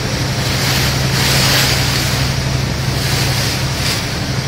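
Wind buffeting the microphone and rushing water over a steady low hum from the ferry's engine, the wind surging about a second in and again near the end.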